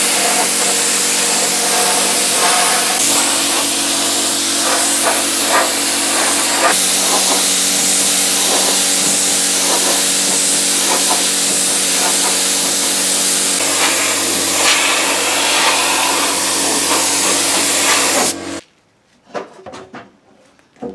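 Compressed-air gravity-feed spray gun hissing steadily as it sprays varnish. The hiss cuts off suddenly near the end, followed by a few short knocks.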